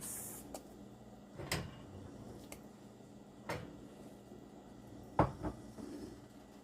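Kitchen utensil knocking against the cooking pot as onions are tipped in: a few separate sharp knocks about two seconds apart, the loudest about five seconds in.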